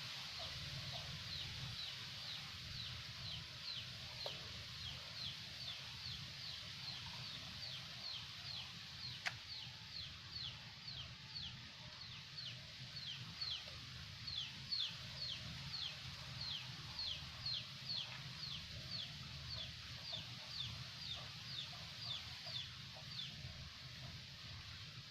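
A bird calling in a long series of short, high, falling chirps, about two a second, stopping shortly before the end.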